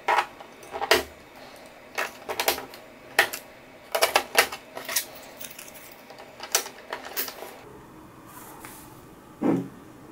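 AAA batteries clicking and clacking as they are pressed into a kitchen scale's plastic battery compartment, then the compartment cover snapping into place. A duller thump comes near the end as the scale is set down.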